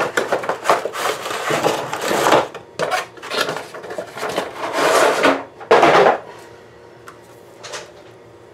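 A cardboard tray of foil-wrapped ball shells and other cardboard being handled and set down on a table: a run of rustles, scrapes and knocks, the loudest about six seconds in. After that only a couple of faint clicks.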